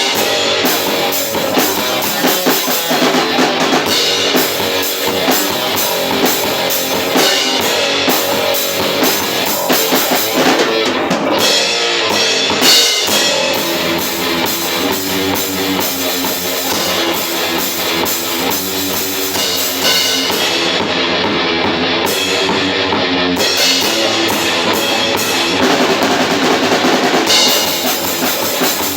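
A metal band playing live at full volume: distorted electric guitars over a drum kit with bass drum and cymbals. There is no singing, only the instruments.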